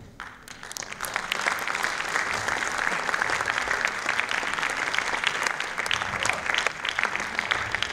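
Large audience applauding, a dense clatter of many hands clapping that builds up within the first second and then holds steady.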